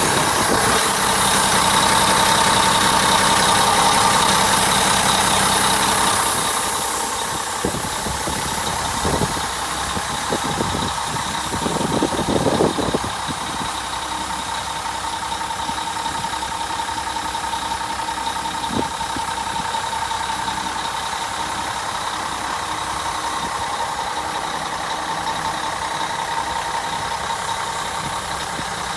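Mack CH613 tractor truck's diesel engine idling steadily, with a thin steady whine over the running. It is louder for the first several seconds, then a little quieter about seven seconds in, with a few brief thumps soon after.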